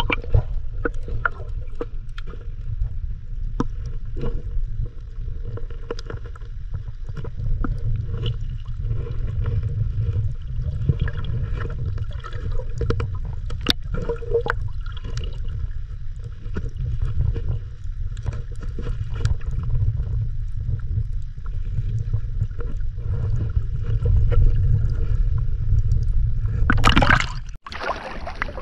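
Muffled sound of shallow reef seawater heard through a camera held in the water: a steady low rumble of moving water with many faint scattered clicks and crackles. Near the end there is a brief louder rush of water.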